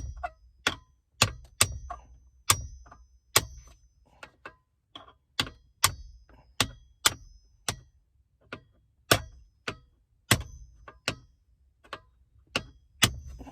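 Hammer tapping on a metal punch to drive a hinge pin into a car's center console lid: a long run of sharp metallic taps, roughly two a second, several with a brief high ring.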